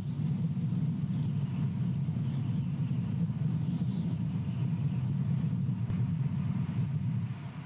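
Steady low rumble of wind buffeting the nest camera's microphone.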